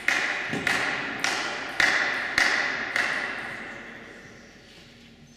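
Plastic table tennis ball bounced repeatedly by hand between points: six even, sharp bounces about 0.6 s apart, each ringing out in the hall. The bouncing stops about three seconds in.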